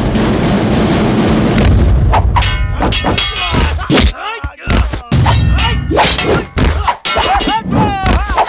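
Film fight sound effects. A dense rush of noise gives way, about two seconds in, to a rapid series of hits and metallic clangs with ringing.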